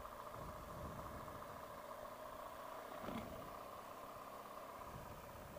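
BMW R1200GS boxer-twin motorcycle engine running steadily at low speed on a dirt track, heard faintly. There is one brief thump about three seconds in.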